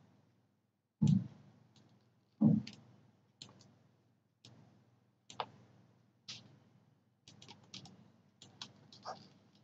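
Computer mouse clicks and keyboard taps while placing pen-tool anchor points in Photoshop. Separate sharp clicks come about a second apart, the loudest two with a dull knock, followed by a quicker run of clicks near the end.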